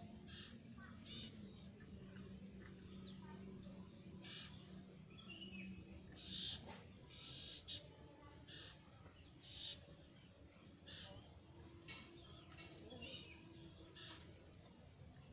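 Jongkangan bird giving short, scratchy chirps, one every half second to second. Its voice is hoarse and falls short of full song because the bird is in moult and dropping feathers.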